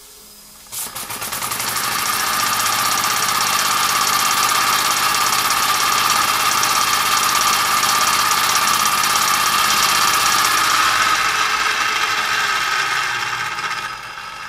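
Mamod SP2 toy live-steam engine starting when its flywheel is flicked by hand, then running fast and steady with a rapid, hissing chuff of steam exhaust as it drives a small dynamo. It dies away near the end.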